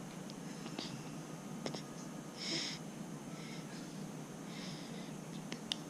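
A baby's soft breathing and snuffling, with one short breathy snort about two and a half seconds in, a few softer breaths after it, and several faint clicks.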